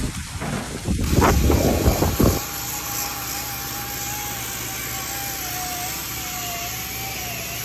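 Rushing water from a garden rock fountain, buffeted by gusts on the microphone, for about two seconds. It then gives way abruptly to a handheld power tool grinding a wet stone slab: a steady motor whine that wavers slightly in pitch over a low hum.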